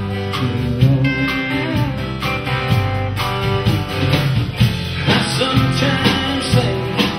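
A live band playing an instrumental bar of a country-rock song: acoustic guitar with electric bass and a drum kit.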